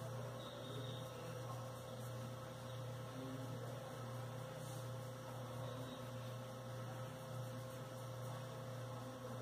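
Steady low electrical hum with a faint even hiss underneath.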